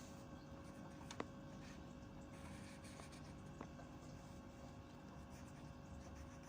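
Near silence: quiet room tone with a faint steady hum, broken by two small clicks, about a second in and again past three and a half seconds.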